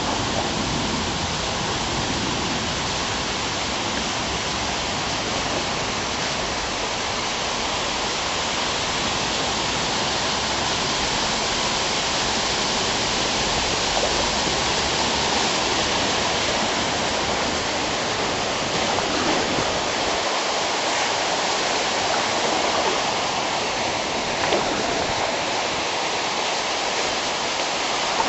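Steady rush of flowing water, unbroken throughout.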